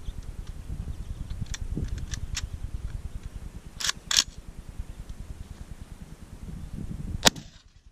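Old 12-gauge Winchester shotgun: two sharp metallic clicks of the action being worked about four seconds in, then a single shot near the end. Steady wind rumble on the microphone underneath.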